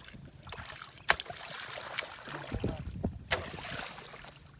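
Shallow muddy water sloshing and splashing as people wade and dig through it, with two sharp smacks, about a second in and again about three seconds in.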